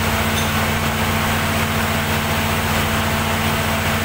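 Perkins diesel generator set running steadily, a constant low engine hum.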